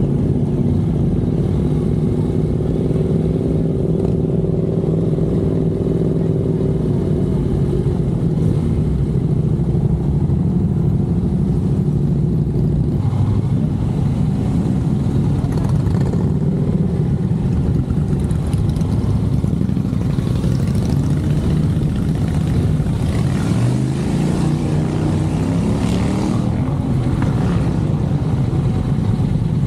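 Honda NC750X's parallel-twin engine running at low road speed with wind and road noise. Near the end the engine note drops and then rises again as it picks up speed.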